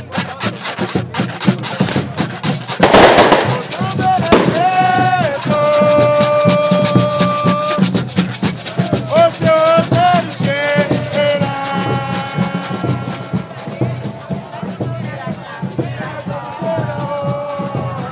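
Congo band from Espírito Santo playing: casacas (carved wooden scrapers) rasp a fast, dense rhythm over congo drums. Singing in long held notes comes in about four seconds in and returns twice. A loud noisy burst stands out about three seconds in.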